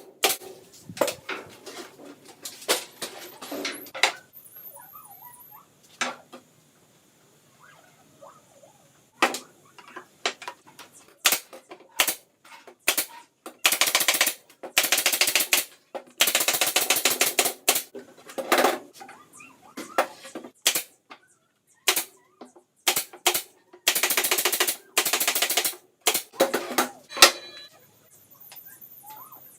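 Tool work on a wooden subwoofer cabinet: several bursts of rapid clattering, each about one and a half to two seconds long, with single sharp knocks between them and a short quiet spell about a quarter of the way through.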